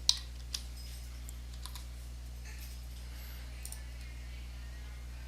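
Computer keyboard keystrokes, two sharp taps in the first half-second, then a few faint clicks over a steady low hum.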